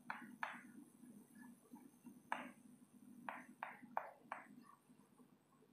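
Chalk scraping on a blackboard as letters are written: a series of short, faint strokes, some in quick succession, with pauses between.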